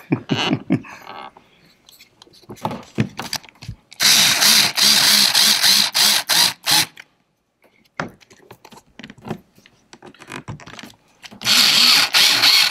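Cordless drill/driver driving screws into a plastic kayak pod, running in two spells: about four seconds in for a few seconds, and again near the end. Light clicks and handling of parts between the runs.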